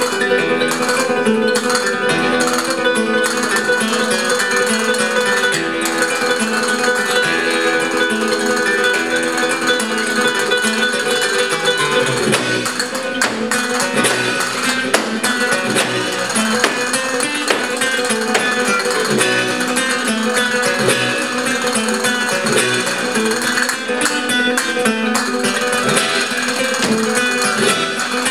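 Live flamenco acoustic guitar playing. From about twelve seconds in, quick sharp percussive taps join the music.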